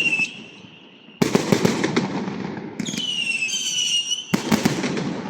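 Fireworks going off. A high whistle at the start is followed about a second in by a rapid run of sharp bangs and crackles. About three seconds in comes a longer, slightly falling whistle, and near the end another run of bangs.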